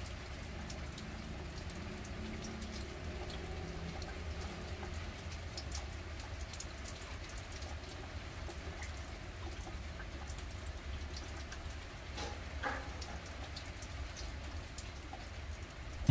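Steady rain falling on a garden terrace, with many individual drops ticking sharply close by. A brief louder sound comes about twelve seconds in.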